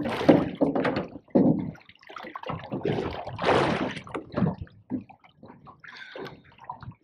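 Water sloshing and splashing in irregular swells, with scattered knocks.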